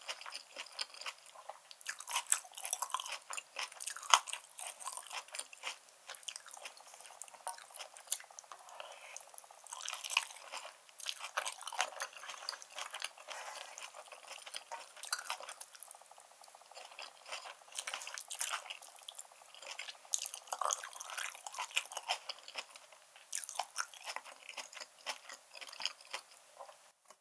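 Close-miked mouth sounds of a person chewing food: wet, crunchy chewing with many small irregular clicks and smacks, coming in clusters with short lulls, ending abruptly.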